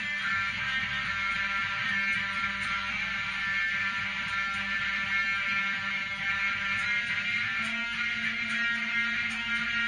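Electric guitar and bass guitar playing together in a slow instrumental jam, the notes held and ringing, with a change of the low note about eight seconds in.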